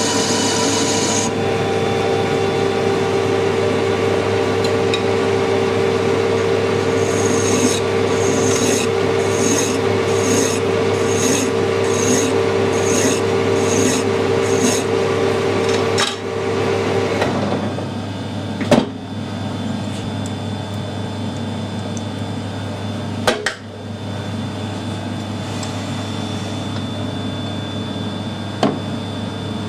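Metal lathe running while a hand file is drawn across the spinning hard steel bar, about a dozen even strokes at roughly one and a half a second. The lathe then stops, and a few sharp metallic knocks follow.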